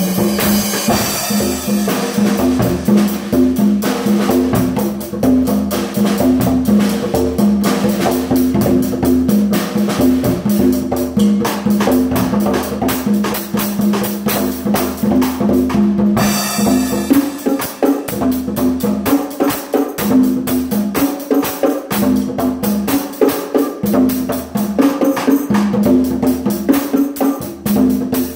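Drum kit played without a break: a dense run of stick hits on drums and cymbals.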